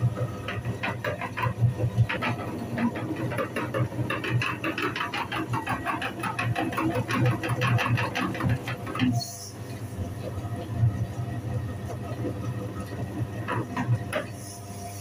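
Meat grinder running with a steady motor hum while its auger crushes bars of soap, a dense crackling crunch. The crunching eases off about nine seconds in and picks up again near the end.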